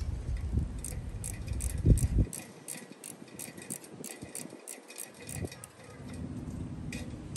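A wrench working on rusted, painted-on bolts of an old fan's cage: a run of light metallic clicks, about three a second, with a heavy thump about two seconds in. The bolts are seized and will not come loose.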